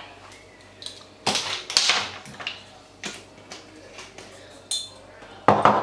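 Irregular clicks, taps and knocks from kitchen items being handled and set down on the counter beside the blender, loudest about a second and a half in and again just before the end.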